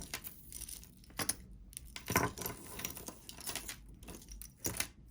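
Metal necklace chain and locket clinking and rustling in the hands, with scattered light clicks as the piece is picked up and handled.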